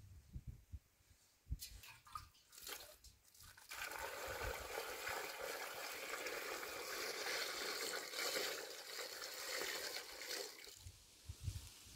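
Water poured from a tall metal pitcher into a metal basin of tomatoes: a steady splashing stream that starts about four seconds in and stops near the end. A few light knocks come before it as the pitcher is handled.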